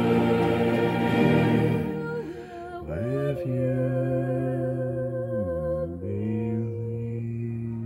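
A man singing long held notes in a low voice, gliding down and back up between them with a slight vibrato. A fuller, denser chord of music is heard for the first two seconds before the single voice carries on alone.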